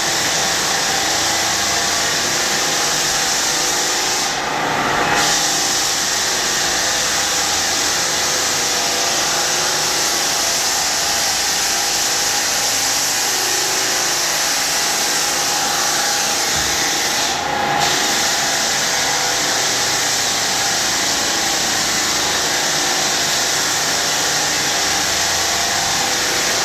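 Floor sander running steadily on hardwood, with its dust-extraction vacuum drawing off the dust as it sands. The noise briefly dips twice.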